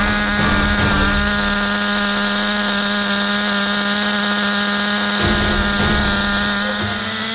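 Small two-stroke nitro engine of a radio-controlled car running at a steady high speed, a high-pitched, buzzing whine.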